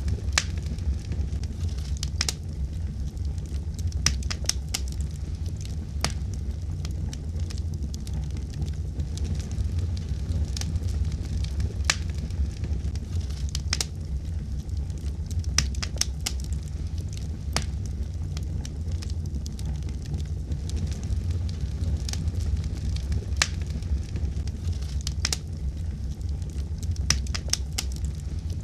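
Fire in a fireplace crackling, with sharp pops at irregular intervals over a steady low rumble.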